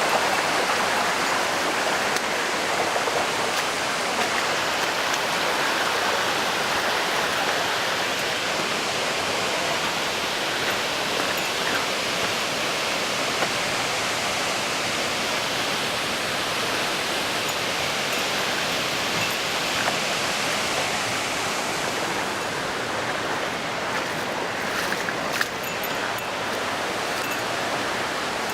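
Steady rush of water from a waterfall pouring into its pool, with a few faint ticks near the end.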